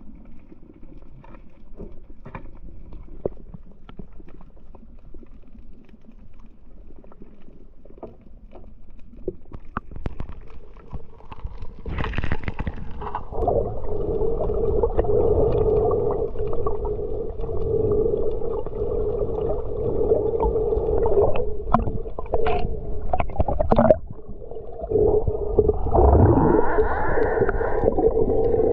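Underwater sound. Faint clicks and crackles come first, then from about twelve seconds in a steady motor hum with gurgling water takes over: a boat engine heard through the water.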